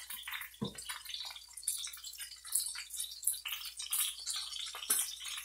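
Pork butt searing in a hot braising pan: the fat sizzling with dense, irregular crackles and pops.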